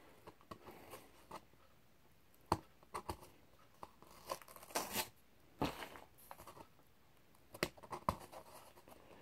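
Flat cardboard mailer being handled and pulled open: irregular crackles, scrapes and tears of stiff cardboard, with quiet gaps between.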